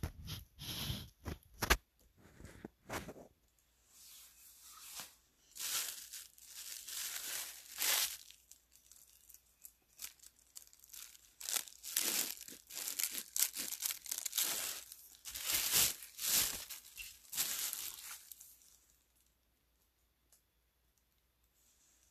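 Hand carving gouge cutting into a woodblock: a run of short, irregular scraping strokes that stop a few seconds before the end.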